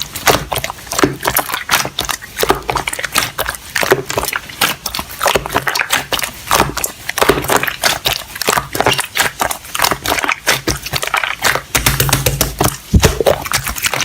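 Rapid, irregular crunching and crackling, many short crisp sounds in close succession.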